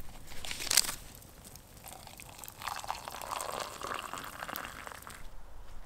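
Hot water poured from a camp pot into a mug to make tea, the pour running for about two seconds from midway. A sharp clink comes a little before it, about a second in.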